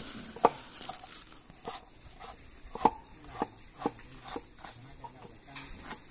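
Knife knocking against a cutting board while a large fish is cut up: about a dozen sharp knocks at uneven intervals.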